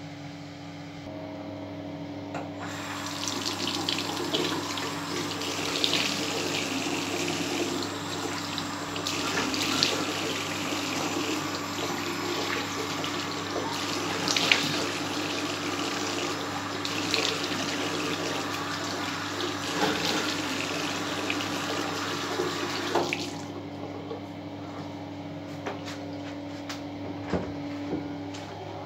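Bathroom tap running into a sink while a face is washed by hand, with irregular splashes of water. The tap is shut off about three-quarters of the way through, leaving a steady low hum.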